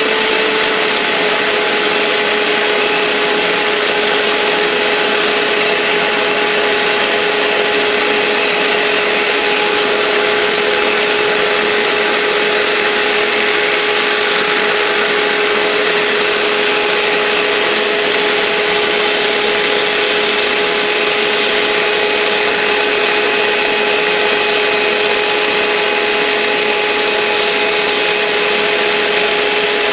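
A 12-amp Hoover SteamVac SpinScrub carpet cleaner running while cleaning carpet: a steady motor whine over a loud, even rushing hiss, unchanging throughout.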